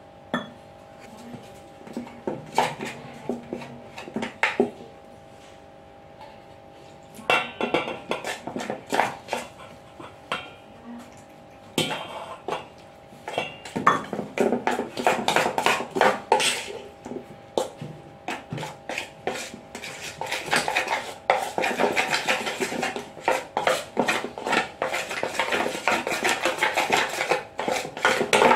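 A metal spoon scraping and clinking against a stainless steel bowl while stirring a biscuit-and-milk batter, in irregular bouts with short pauses, busier and more continuous in the second half.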